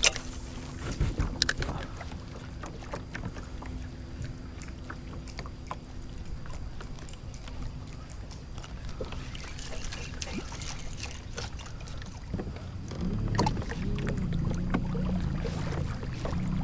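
Small knocks and clicks of a fishing rod and reel being cast and worked from a kayak. A low, uneven hum comes in about thirteen seconds in.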